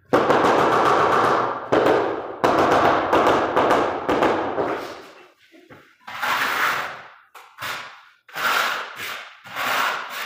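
Floor-tiling work: bursts of rapid, rough knocking and scraping against a porcelain floor tile and its bed. Two long bursts at the start fade out over a second or two, and three shorter, sharper ones follow.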